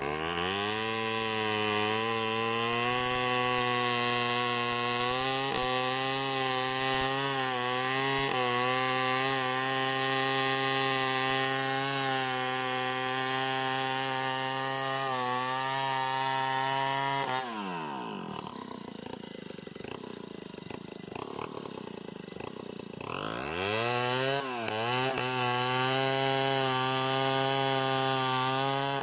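Stihl 070 two-stroke chainsaw at full throttle boring into the trunk of a large tree, its engine pitch holding steady under load. About 17 seconds in it drops back to idle for several seconds, then revs up again and resumes cutting.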